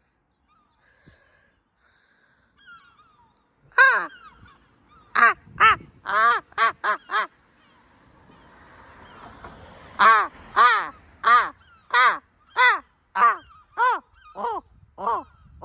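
Seagull crying in a rapid series of loud, arching calls, about two a second: one run of them, a short pause, then a longer run.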